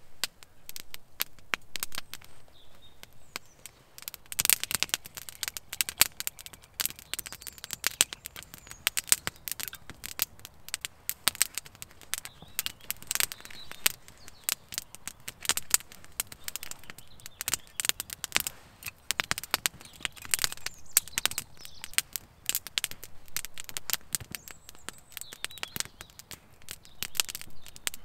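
Wood burning in a small metal stove, crackling with irregular sharp pops that grow busier about four seconds in.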